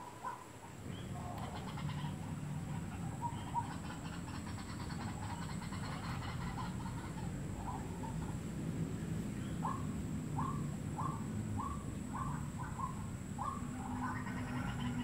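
White-breasted waterhen calls: scattered short notes, then past the middle a run of about seven sharp, falling notes, roughly one and a half a second. A low rumbling noise runs underneath.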